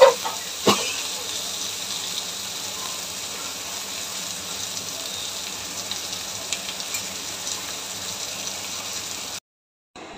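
Masala-coated sardines sizzling steadily as they shallow-fry in oil in a stainless steel pan. A spatula knocks against the pan twice in the first second. The sound cuts off suddenly near the end.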